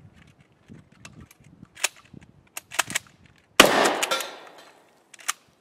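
Pump-action shotgun's slide rammed back and forward in a few sharp metal clacks, clearing a stovepipe (a spent hull caught in the ejection port), then a single shotgun blast about three and a half seconds in that echoes for about a second. Two more quick clacks of the action come near the end.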